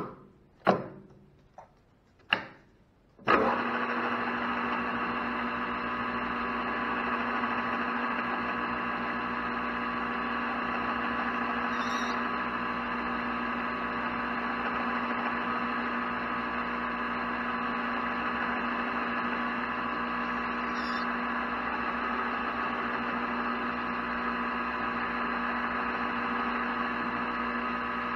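A few sharp clicks, then about three seconds in a metal lathe starts up and runs at a constant speed with a steady hum made of several fixed tones from its spindle drive.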